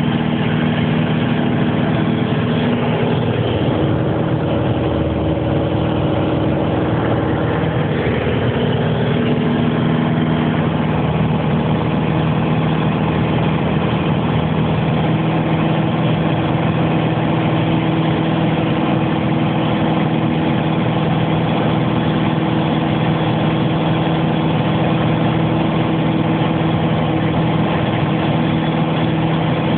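Aeroplane engine running with a steady drone; its pitch shifts slightly between about four and ten seconds in.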